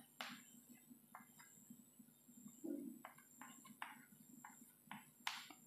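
Chalk writing on a blackboard: about ten faint, short, irregular taps and scrapes of the chalk over a faint low hum.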